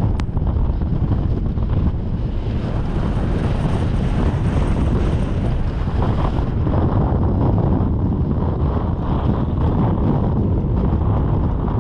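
Strong wind of around 40 knots buffeting the microphone with a loud, steady low rumble, over the rush of waves against a sailing yacht's hull. A brighter hiss of breaking water and spray rises about two seconds in and cuts off suddenly about six and a half seconds in.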